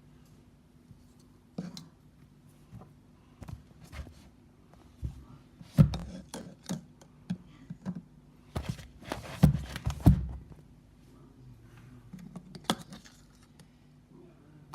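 Irregular clicks, taps and knocks of small objects being handled and set down, with a few louder thuds about six seconds and ten seconds in.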